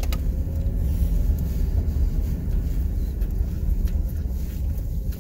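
Steady low rumble of a moving vehicle's engine and tyres.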